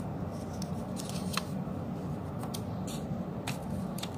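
Scissors snipping through paper: a handful of short, crisp cuts at irregular intervals over a steady low background hum.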